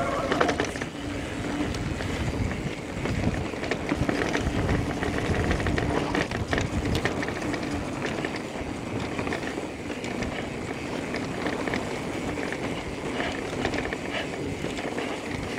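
Electric mountain bike ridden fast down a dirt singletrack: continuous rushing tyre-on-dirt noise with frequent rattles and knocks from the bike over rough ground.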